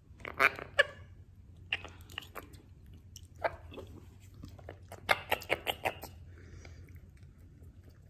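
A person chewing crunchy food close to the microphone, in scattered crunches with a quick run of about six about five seconds in.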